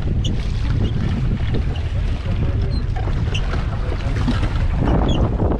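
Steady wind rumble on the microphone over water lapping and splashing against a small rowing boat.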